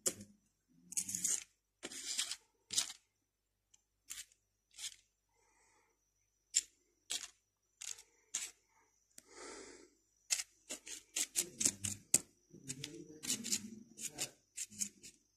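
A metal spoon scraping and pushing instant coffee-mix powder around on a sheet of paper: a string of short, irregular scratches, coming faster in the second half.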